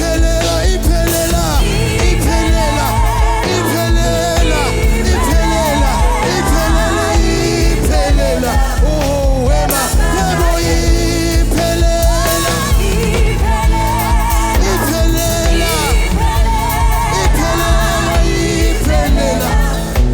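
Live gospel worship music: a band plays a steady beat with bass and drums while a singer's voice wavers and runs freely above it without clear words.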